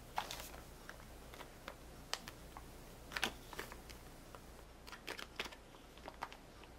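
Faint, irregular clicks and crinkles of small packets being handled: a plastic bag of heat sinks and a foil pouch holding a microSD card taken from a cardboard box. There is a small cluster of rustles about five seconds in.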